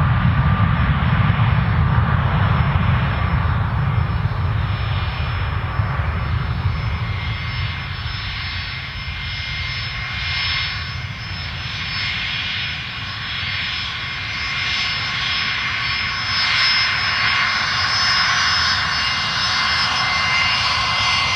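Jet aircraft engines: the deep rumble of an Airbus A330's Rolls-Royce Trent turbofans on the takeoff roll, easing over the first several seconds. It gives way to the whine of a Fokker 100's Rolls-Royce Tay turbofans at taxi power, with high steady tones that grow stronger in the second half.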